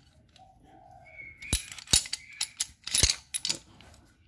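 TOP-brand ratcheting squeeze clamp being worked by hand along its toothed bar: an irregular run of sharp metal clicks and clacks, loudest in the middle, with faint squeaks before them.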